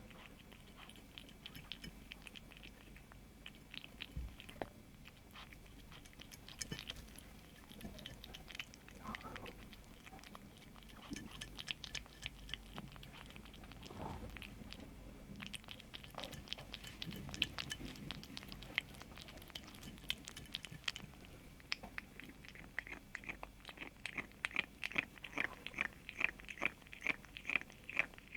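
A kitten chewing and crunching food in many short, crisp bites, which turn into a fast, steady run of louder crunches near the end.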